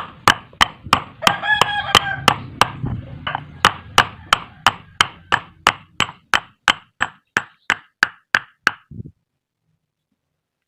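Hammer tapping a part home during a scooter CVT rebuild: light, even strikes about three a second, which stop near the end.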